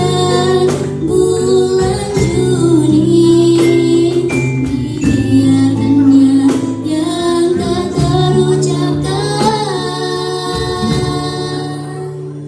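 Music with female singing over a sustained instrumental accompaniment and percussion strokes, growing quieter over the last few seconds.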